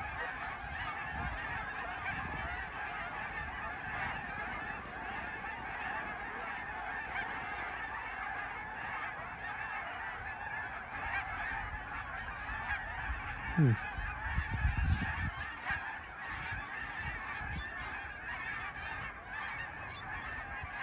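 A huge flock of Canada geese honking, a dense continuous chorus of many overlapping calls. About two-thirds of the way through, a brief low sound falling in pitch stands out.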